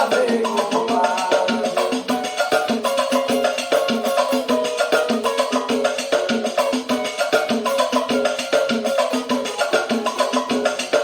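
Instrumental music with no singing: a melodic instrument plays over quick, steady percussion.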